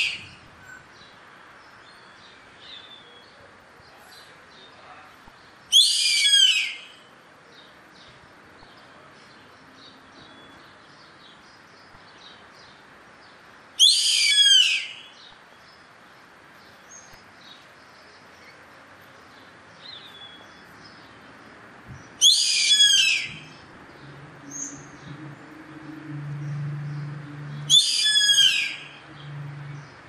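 Yellow-headed caracara calling four times, about every six to eight seconds, each call about a second long and falling in pitch. Faint chirping comes between the calls, and a low hum comes in during the last few seconds.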